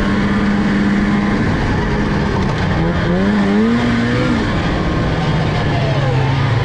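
Snowmobile engine running at a steady pitch, revving up about three seconds in, then easing back to a lower, steady note.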